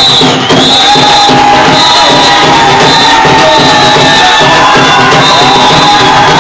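Loud bhangra music: a driving drum beat under long, held melody notes that bend at their starts, with shouts from the crowd.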